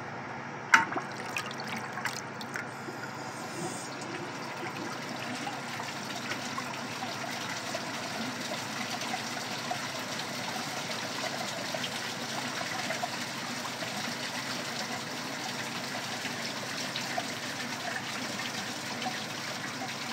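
Vintage Kohler Pompton lowboy toilet flushing: a short knock as the flush starts, then a steady rush of water swirling round the bowl. The flush swirls but fails to clear the bowl, which the owner puts down to the bowl not being filled beforehand.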